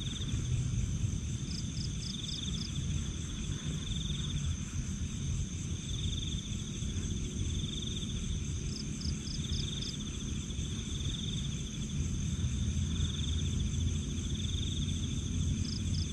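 Night insect chorus of crickets or katydids: a steady high trill with a lower buzzing trill that swells and fades about every two seconds, and three short runs of about five quick chirps. A low rumble runs underneath.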